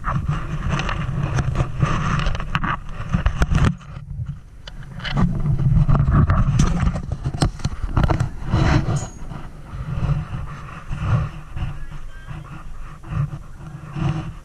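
Rubbing and knocking on a camera's microphone as it is carried by someone walking, with a heavy low rumble and many short knocks throughout.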